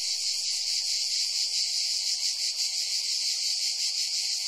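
Dense chorus of singing insects, a steady high-pitched buzz with a fine rapid pulse.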